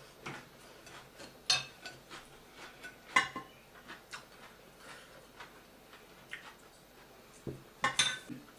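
Eating utensils clinking against plates and dishes in a series of scattered sharp clinks, the loudest about a second and a half in, about three seconds in, and near the end, with fainter ticks between.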